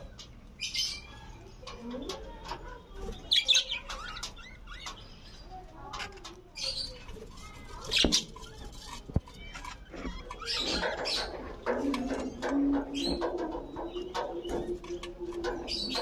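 Budgerigars chirping and chattering in many short, high calls, with a few sharper, louder chirps. A lower, steady drawn-out tone joins in for the last few seconds.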